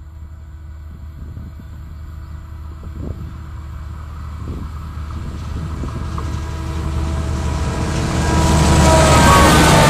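Diesel locomotives led by a Renfe 319-series diesel-electric approaching with a steady engine hum that grows louder and louder. About eight seconds in the lead locomotive draws level and the sound swells into a loud rush of wheels on the rails, with a few high squeals.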